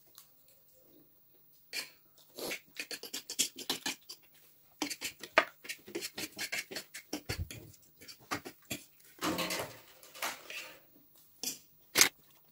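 Close-up eating sounds: wet chewing and lip-smacking clicks in quick runs while chow mein noodles and momo dumplings are eaten, with a sharp clink of a fork on a plate near the end.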